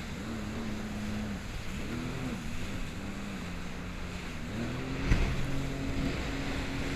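Jet ski engine running with its pitch rising and falling as the throttle changes, over wind and water noise. A sharp thump about five seconds in, after which the engine holds a steadier pitch.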